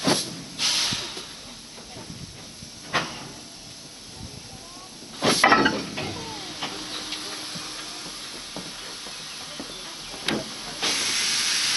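Steam locomotive hissing steam in short sharp bursts a few seconds apart, the loudest about five seconds in. Near the end a steady loud hiss sets in as the train gets under way.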